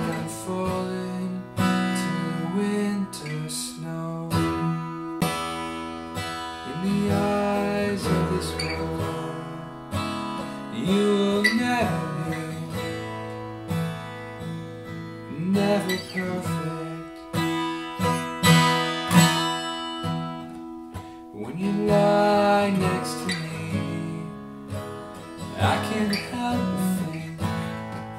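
Steel-string acoustic guitar strummed through a song, chords ringing with regular strokes.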